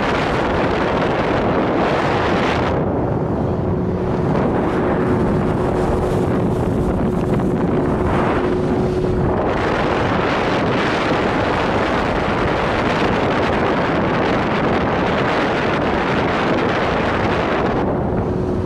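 Wind buffeting the microphone over the steady drone of a Quicksilver motorboat's 90 hp engine and rushing water as the boat cruises. A faint steady hum comes in about three seconds in and drops out around nine seconds, returning near the end.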